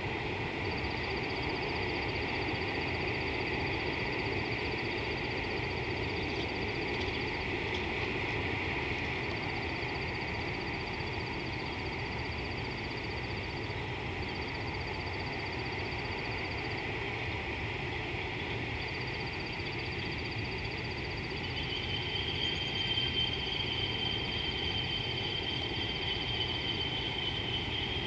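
Savanna outdoor ambience: a steady background hiss with continuous high, rapidly pulsed trilling calls that stop and restart every few seconds. A second, steadier high call joins about two-thirds of the way through.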